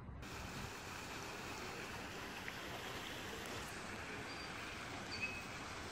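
Steady rushing noise of outdoor ambience, like flowing water, with a few faint, brief high tones near the end.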